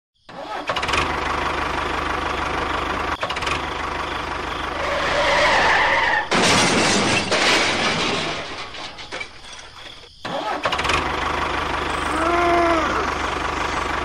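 Tractor engine running steadily. A louder rushing noise comes in about six seconds in and lasts a couple of seconds, and the sound drops away briefly around ten seconds before the engine picks up again.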